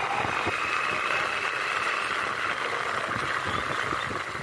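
Motorcycle in motion: a steady engine hum mixed with even road and wind noise.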